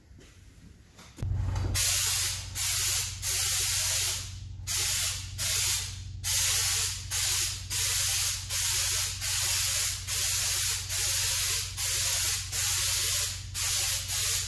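Air-powered bed-liner spray gun (Raptor kit) spraying textured liner, hissing in short trigger bursts of about half a second, a little more than one a second. A steady low hum starts about a second in, just before the spraying.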